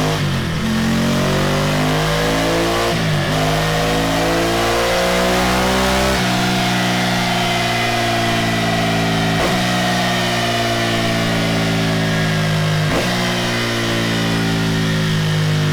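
Ducati Scrambler Desert Sled's 803 cc air-cooled L-twin running hard on a dynamometer through a Delkevic tri-oval stainless steel muffler. Its pitch breaks and changes abruptly about every three seconds.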